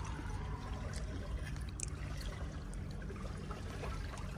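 Steady wash of water in the background, with a few faint clicks of a metal fork against a plate.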